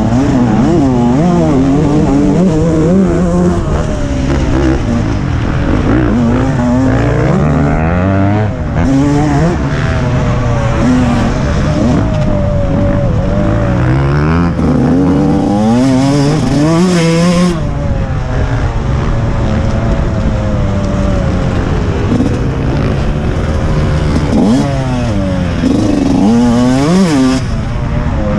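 TM 125 MX motocross bike's 125 cc two-stroke single-cylinder engine being ridden hard around a dirt track, revving up and dropping back again and again as the rider accelerates, shifts and backs off for corners.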